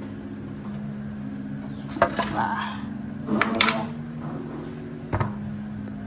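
Aluminium foil loaf tin crinkling and knocking on a wooden chopping board as a freshly baked loaf is turned out of it, with metal tongs clinking on the board. Three sharp knocks, about two, three and a half and five seconds in.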